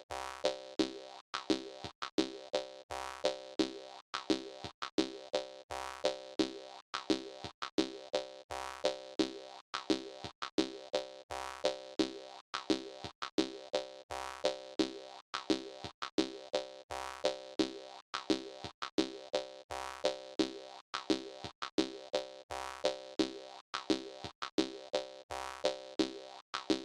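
Jaw harp music: a steady, danceable rhythm of twanging plucks over one droning pitch.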